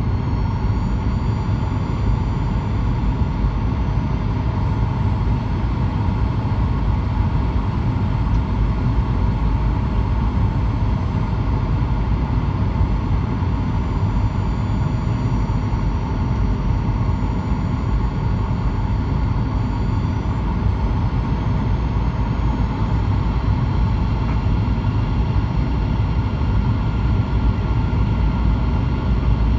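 Cabin noise inside a Boeing 737-900ER: a steady rush of air and the hum of its CFM56-7B engines, with faint high whining tones that drift slightly in pitch.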